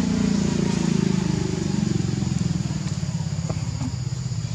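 An engine running steadily with a low, pulsing drone that slowly fades.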